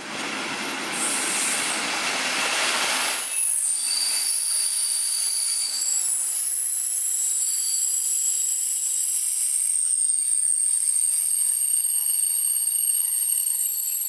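Loud running noise of a diesel-hauled passenger train that drops away abruptly about three seconds in. After that come steady high-pitched squeals of several overlapping tones from the coaches' steel wheels grinding on the rails round a tight curve.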